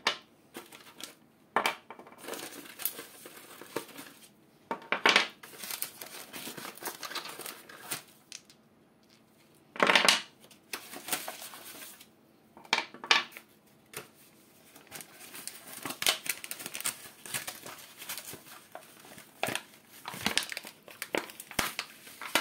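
A sheet of paper being handled, crinkling and rustling in irregular bursts, loudest about five and ten seconds in.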